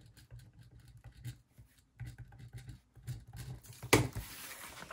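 Pen writing on a paper tracker sheet: soft, irregular scratching strokes with a brief pause midway. A single sharp click about four seconds in.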